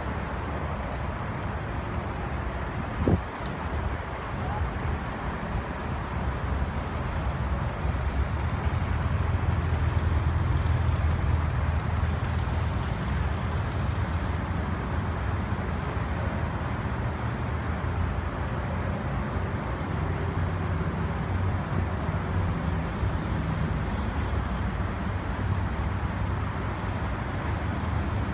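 BMW F800GS parallel-twin motorcycle engine running at low revs as the bike is ridden slowly through a cone course, louder in the middle as it comes nearer. A single short sharp click about three seconds in.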